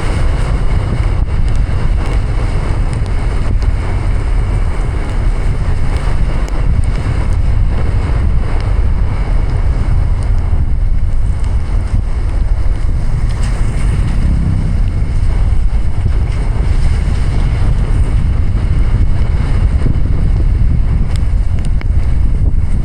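A car driving through heavy rain: a steady, loud rumble of rain and tyre-on-wet-road noise with wind buffeting.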